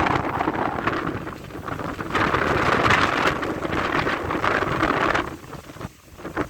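Heavy rain pouring down, with wind buffeting the microphone. The rush drops away quickly about five seconds in.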